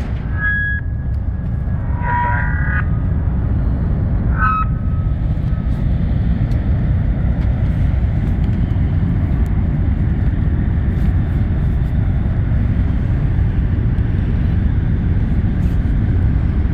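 Steady low rumble, with a few short high tones in the first five seconds.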